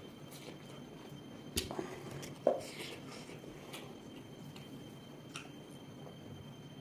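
A person eating: faint mouth and chewing sounds, with two short knocks a little under a second apart, the second the loudest.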